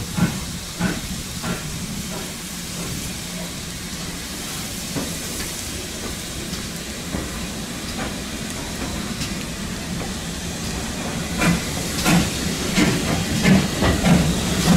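Steady hiss of escaping steam from a standing BR Standard Class 4MT 2-6-0 steam locomotive, while a GWR Modified Hall 4-6-0 steam locomotive draws slowly in alongside. From about two-thirds of the way through, the clanks and knocks of the arriving engine's wheels and motion grow louder as it passes close by.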